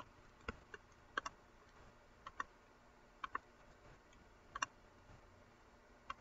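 Faint computer mouse clicks: a handful of sharp clicks, several coming in close pairs, while the user selects tools and draws links on screen.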